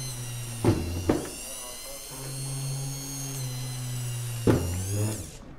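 Mini rotary drill running at high speed as it bores air holes through the side of a plastic storage box. The whine dips in pitch under load about a second in and again near the end, then winds down and stops.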